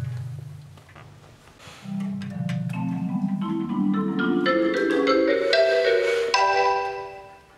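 Marimba playing alone. A low tremolo roll fades out, then about two seconds in a rolled passage climbs steadily in pitch and ends on a high chord that rings and dies away near the end.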